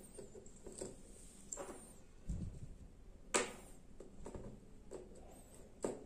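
Handling noise of wires and a 3.5 mm audio cable on a small amplifier board: scattered light clicks and taps, with a sharper click about three and a half seconds in and another near the end.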